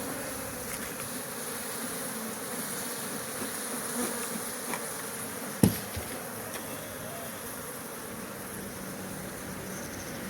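Honeybees buzzing steadily around the hives of a bee farm, with one sharp knock about five and a half seconds in.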